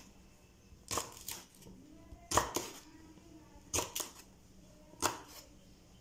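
Kitchen knife chopping moringa drumstick pods into short pieces on a wooden cutting board: four sharp chops about a second and a half apart, each followed by a lighter knock.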